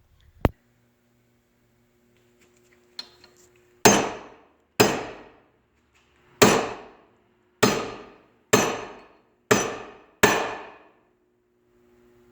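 Hammer striking a stainless steel tailgate hinge seven times, about a second apart, each blow ringing briefly: the hinge's rolled barrel is being squeezed tighter so it will fit its hole. A single sharp click sounds just after the start.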